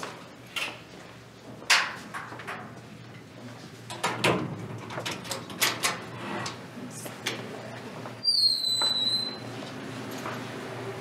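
An office door being opened and passed through: a handle and latch clicking, knocks and bumps, and footsteps. About eight seconds in comes a high squeak lasting about a second that falls slightly in pitch.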